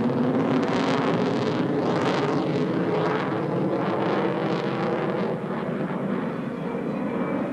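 Grumman F-14 Tomcat's twin jet engines heard from the ground as the fighter flies a steep banking turn: a loud, steady jet rush that surges and wavers, easing slightly near the end.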